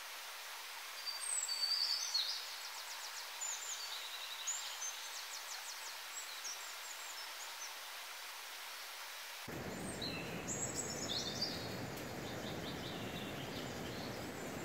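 Steady rush of river water with songbirds chirping and trilling over it, loudest about a second in. About nine and a half seconds in, the rush suddenly turns fuller and deeper.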